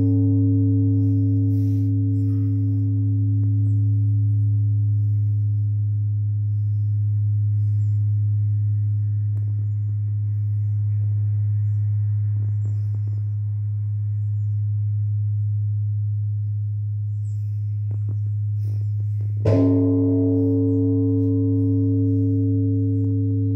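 Large bronze Korean Buddhist temple bell (beomjong) ringing, rung to announce the time of worship. Its deep hum slowly swells and fades while the higher overtones die away. It is struck again about 19 seconds in, with the wooden striker, and rings out anew.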